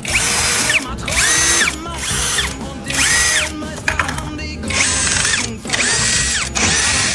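Cordless power drill run in about six short trigger pulls, each spinning up, holding a steady whine and winding down, with music playing underneath.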